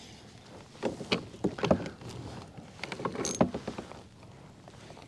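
Irregular knocks and clicks from a spinning rod and reel being handled aboard a fishing kayak while a snagged line is worked free.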